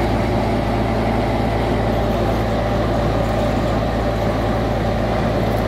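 Crawler crane's diesel engine running steadily while it hoists a heavy wreck section on its chain.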